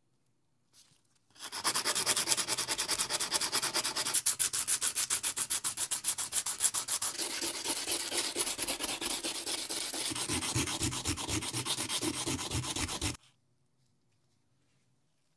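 Abrasive sanding sponge scrubbed against a pearl oyster shell in fast, rapid back-and-forth strokes, several a second, sanding down the shell's surface. The scrubbing starts about a second and a half in and stops abruptly near the end.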